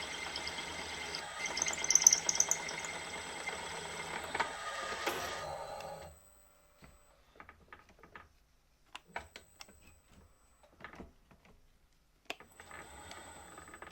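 Machine tool running with a large drill bit cutting, with scratchy, squealing peaks. It stops about six seconds in and is followed by scattered clicks and knocks of handling. It starts running again briefly near the end.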